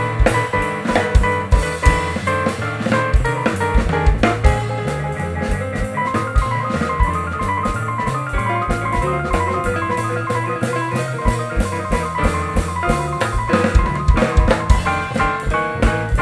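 Live jazz piano trio playing a boogie-woogie tune: grand piano, walking double bass and a drum kit keeping a steady, prominent beat.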